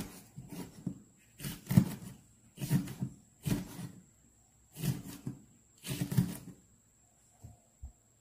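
Cleaver slicing a large red chili on a plastic cutting board: knocks of the blade against the board in short clusters about once a second. They stop about two-thirds of the way through, with a couple of light taps near the end.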